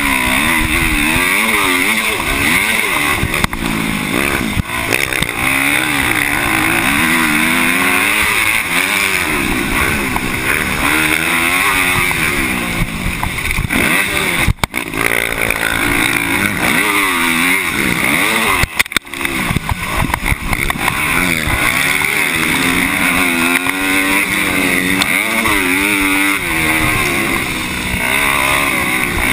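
Motocross dirt bike engine revving hard under race riding, its pitch climbing and falling again and again with throttle and gear changes, over a steady rush of wind on the microphone. The sound drops out briefly twice, about halfway through and a few seconds later.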